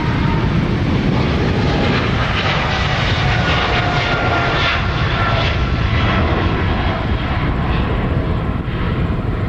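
Boeing 777-300ER's twin GE90-115B turbofan engines at takeoff power as the jet climbs out past, a loud steady rumble. Whining tones ride on top and slide slowly lower in pitch as it goes by.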